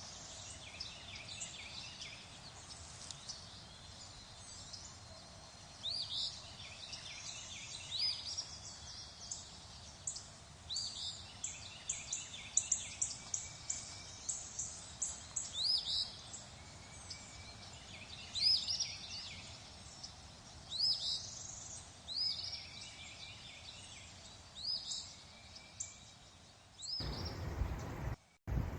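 Several songbirds chirping, with short calls repeated every second or so, many of them quick pitch sweeps, over a soft steady outdoor hiss. Near the end a louder low rumbling noise comes in, broken by a brief dropout.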